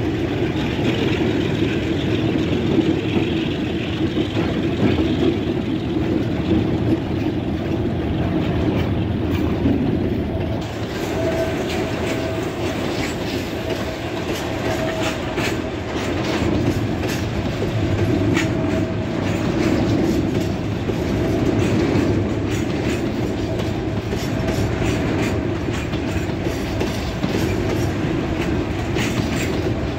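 GE U20C diesel-electric locomotive passing close by with its engine running. About ten seconds in, the sound gives way to loaded hopper wagons rolling past, their wheels clicking rhythmically over the rail joints.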